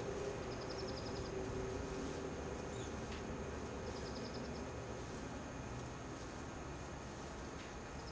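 Faint outdoor background with no speech: a steady low hum that fades out over the first few seconds, and two short trains of rapid, high chirping ticks about three seconds apart.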